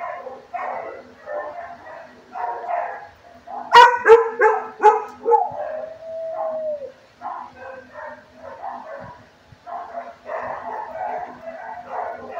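Many shelter dogs barking over one another in a kennel block. About four seconds in, a burst of four loud barks close by, followed by one drawn-out whining note.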